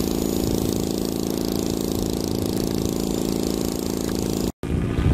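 An engine running steadily at idle. About four and a half seconds in it cuts off abruptly, and wind noise on the microphone follows.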